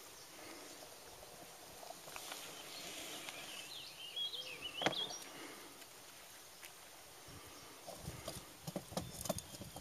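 Faint open-air riverside ambience with a bird singing a short wavering phrase a few seconds in. A scatter of light knocks and clicks follows near the end.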